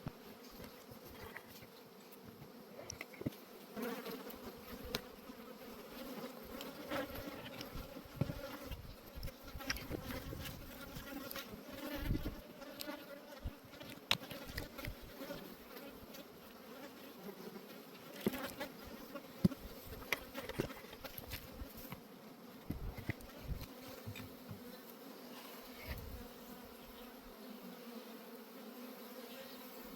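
Honeybees buzzing steadily around an open nucleus hive, with scattered short clicks and knocks from hive parts being handled.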